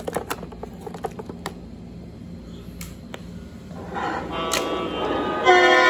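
A run of light clicks in the first second and a half. From about four seconds in, the onboard sound system of a Lionel O-gauge CSX diesel locomotive blows its horn: a steady chord of several tones that gets loudest near the end.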